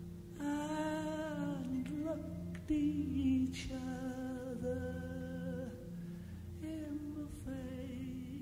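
Wordless female singing, a few long held notes that bend and glide between pitches, over a steady low drone.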